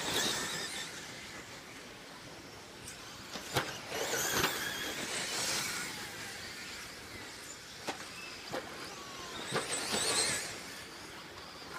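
1/10-scale electric RC stadium trucks with modified-class motors racing past on a dirt track: the high whine of their motors and drivetrains swells three times as they go by, with several sharp clacks as they bounce over the jumps.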